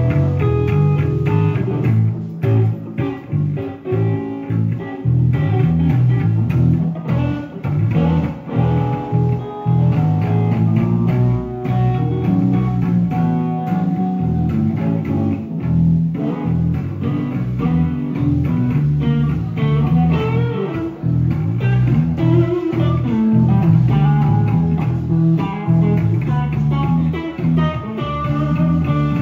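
Electric guitar and bass guitar playing together through amplifiers, a band jamming, with a strong bass line under the guitar.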